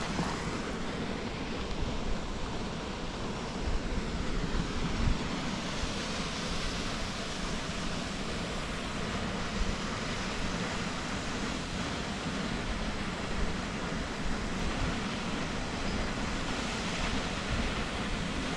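Wind buffeting the microphone, with a steady rushing hiss underneath.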